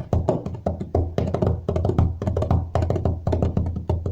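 Hands drumming a quick rhythm on a wooden table: sharp fingertip taps, several a second, over a steady low resonance.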